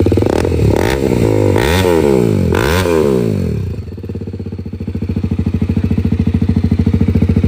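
BMW G310RR single-cylinder motorcycle engine through an aftermarket exhaust, revved up and back down a few times, then settling to a steady, evenly pulsing run at low revs.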